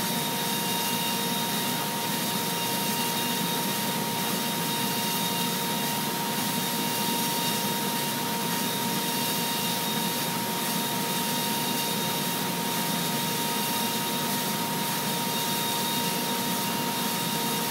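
Willemin Macodel W408B five-axis mill cutting stainless steel with a 1 mm ball-nose end mill on a five-axis path, spindle at about 28,000 RPM. The result is a steady high whine over an even hiss of flood coolant spray.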